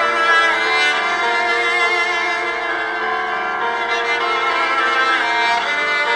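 Background music: violin playing sustained, slowly changing notes over an accompaniment.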